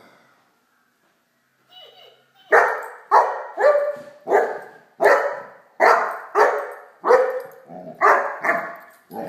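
Great Dane puppy barking over and over, about two barks a second, starting a couple of seconds in.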